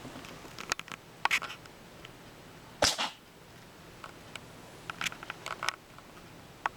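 A cat sneezes once, a short sharp burst about three seconds in. Around it come scattered crinkles and scratches from a paper bag being played in.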